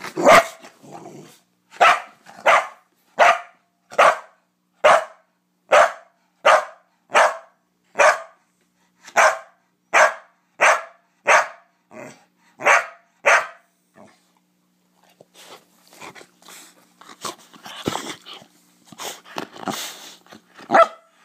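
Blue heeler barking over and over, about a bark and a half a second, for some fourteen seconds. Then the barking stops and softer, rougher sounds follow.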